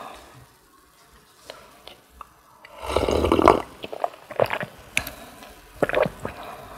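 Close-miked mouth sounds of eating porridge: chewing, with one loud noisy burst lasting under a second about three seconds in, then a few short sharp clicks.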